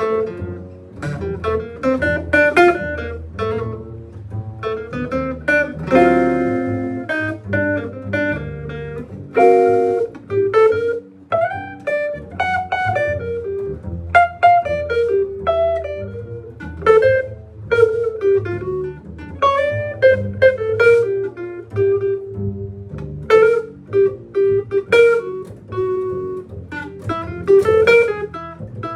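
A band playing, led by a plucked guitar melody over a low bass line. Fuller chords ring out about six and nine and a half seconds in.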